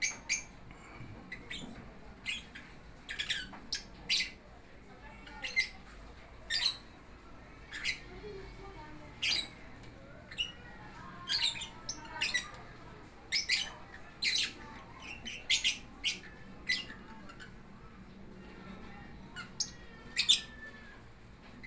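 Lovebirds giving short, shrill squawks, one or two a second at irregular intervals.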